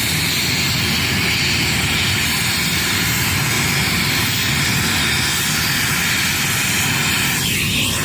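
Helicopter running close by: a loud, steady rush of engine and rotor noise.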